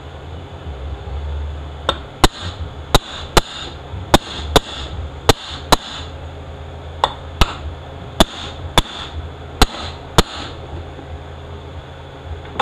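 Hammer tapping a part into place in a 68RFE transmission housing: about fourteen sharp, ringing strikes, mostly in quick pairs, starting about two seconds in and stopping about ten seconds in.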